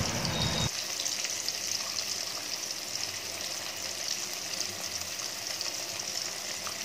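Hilsa fish steaks sizzling as they shallow-fry in hot mustard oil in a wok, a steady hiss.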